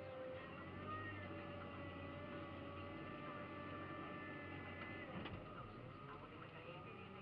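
Caterpillar 966K wheel loader's diesel engine running, heard from inside the cab while the bucket is worked, with steady high whines over the engine. There is a brief click about five seconds in.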